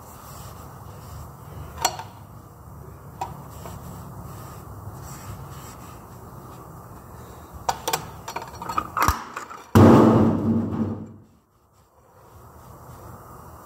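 Rag wiping and handling sounds on a cast motor end housing over a steady shop hum, with a few light clicks and knocks. About ten seconds in comes a sudden loud low rub lasting about a second, which then drops away to near silence briefly.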